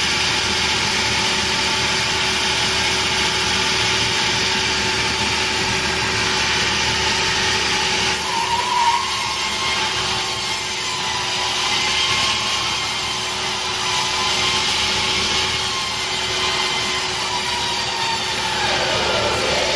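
Sawmill saw and its engine running steadily, with a constant hum under a wide mechanical noise. About eight seconds in the sound changes and a wavering whine comes in, with more shifting pitch near the end.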